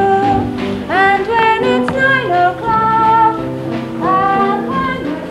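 Music: a woman singing with instrumental accompaniment, holding notes and sliding up into several of them.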